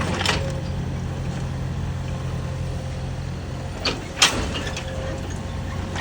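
Mini excavator's diesel engine running steadily, with a few sharp knocks as it is unloaded; the loudest knock comes about four seconds in.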